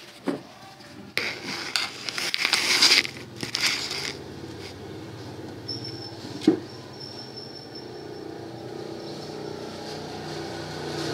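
Plastic handling noises: scraping and rustling as a white phone and a USB memory-card reader are picked up and moved on a desk, with a single sharp knock about six and a half seconds in.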